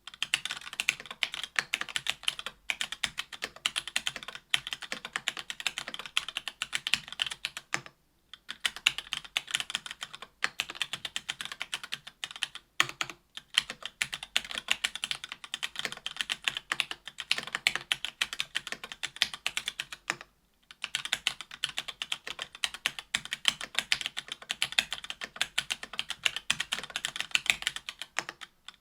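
Typing on an AL.BOK mechanical keyboard with stock Gateron Clear 40 g linear switches in an aluminium plate, under GMK keycaps: a fast, continuous run of key clacks, broken by short pauses three times.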